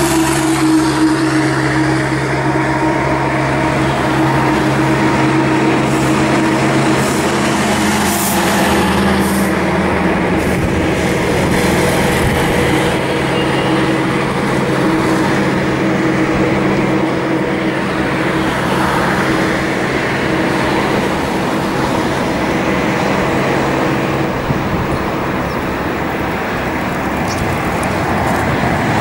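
Steady road traffic noise, with a nearby vehicle engine running at a steady pitch for about the first ten seconds before it fades out.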